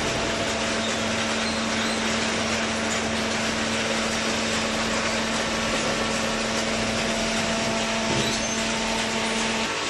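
Industrial cardboard shredder and baler machinery running steadily, a dense mechanical noise with a constant low hum that drops out shortly before the end.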